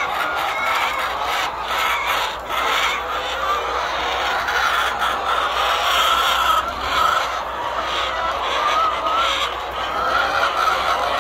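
A flock of laying hens clucking and calling together, many birds at once in a continuous chatter.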